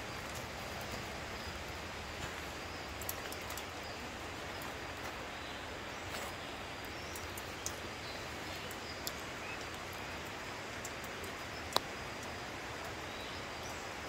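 Footsteps on a dirt forest trail: a few light, scattered taps and clicks over a steady outdoor hiss, with one sharper click near the end.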